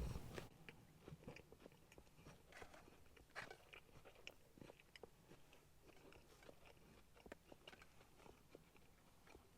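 Faint close-up chewing of a McDonald's chicken nugget: scattered soft mouth clicks and small wet ticks, no steady sound.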